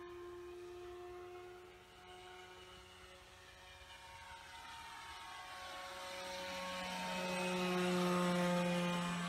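Electric motor and propeller of a radio-controlled Flair Black Magic model plane in flight: a steady whine that grows louder and shifts in pitch as the plane comes in, at its loudest as it passes close overhead about eight seconds in.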